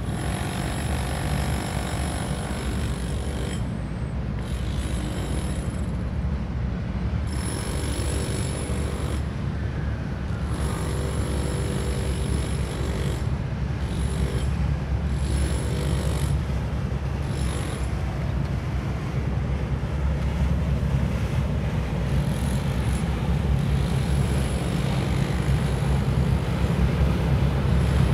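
Steady low rumble of boat engines over moving water, growing somewhat louder in the last few seconds as a small pilot boat runs past close by with a wake.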